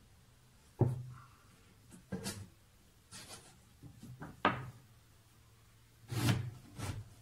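Irregular metallic knocks and clunks from a hand-operated bar bender and its long lever handle being moved and set down on a workbench, about six separate knocks with the loudest about a second in and near the end.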